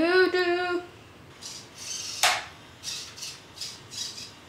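Meccanoid G15 robot's arm servo motors whirring in short bursts, about two to three a second, as the arm moves. Before them, a held pitched tone bends upward and stops about a second in.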